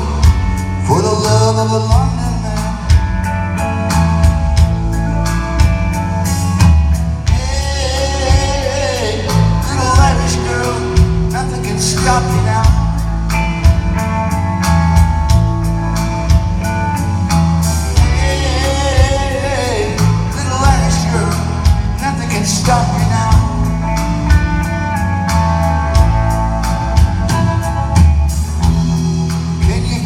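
A rock band playing live: electric guitars, bass and drums with a steady beat, and a man singing.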